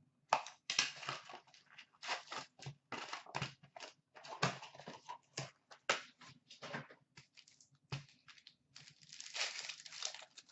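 Hockey card box packaging being cut, torn open and handled: a run of sharp crinkling and ripping of cardboard and wrapper, with packs rustling as they are pulled out. Near the end comes a longer ripping crinkle as a foil card pack is torn open.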